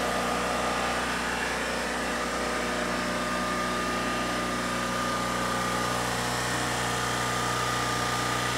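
Kohler 6.5CZ23 marine gasoline generator running steadily on a test run, its carburetor freshly gone through; an even engine hum with a thin steady whine above it.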